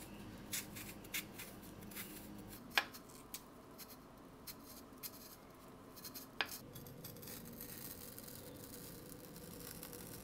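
Kitchen knife peeling and scoring rounds of daikon radish on a cutting board: soft scraping and small clicks, with two sharper taps, about three seconds in and again after six seconds.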